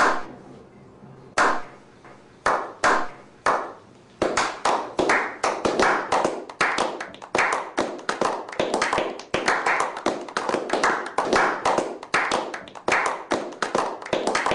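One person's hand clapping: a few slow, separate claps at first, then speeding up about four seconds in to a steady run of about three claps a second.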